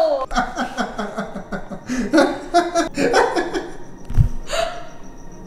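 A woman laughing in short repeated bursts, then more softly, with a brief low thump about four seconds in.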